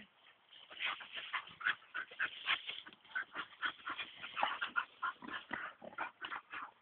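Dogs whining and yipping in a quick run of short, high calls, the excited noise of dogs at play.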